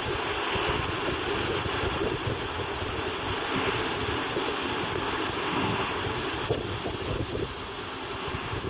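Passenger train of n-Wagen (Silberling) coaches rolling into a station, a steady rumble of wheels on rail. About six seconds in a high, steady squeal sets in as it slows, the squealing station arrival typical of these coaches.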